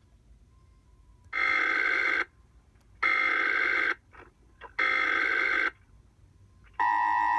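Emergency Alert System header tones: three harsh, buzzing digital data bursts, each just under a second and about a second apart. Then, near the end, the steady two-tone EAS attention signal sounds, the alert that comes before a broadcast message.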